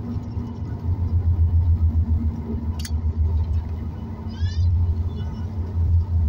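Steady low cabin rumble of a Boeing 737 MAX 9 taxiing after landing, its engines at idle and its wheels rolling along the taxiway. A single sharp click comes about three seconds in, and a brief high squeak a little past the middle.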